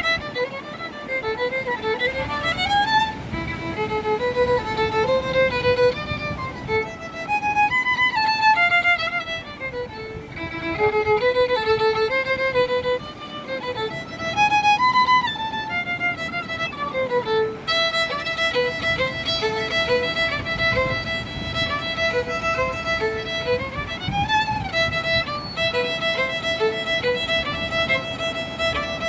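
Violin playing a slow melody, with some notes sliding up and down in pitch; in the second half the notes are held longer and steadier.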